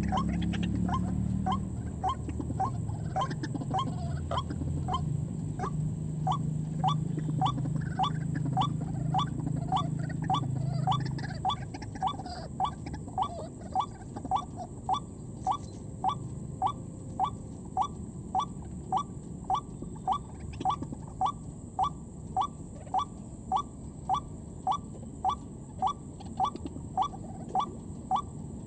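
A white-breasted waterhen lure call repeating very evenly, a short rising note about one and a half times a second, with a steady high-pitched drone behind it. A low hum stops about eleven seconds in.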